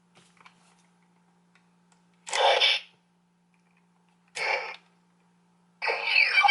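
Electronic sound effects from a Power Rangers Beast Morphers Morph-X Key toy, played through its small speaker: a few faint button clicks, then two short noisy blasts about two seconds apart, and a longer effect with sweeping, gliding tones starting near the end.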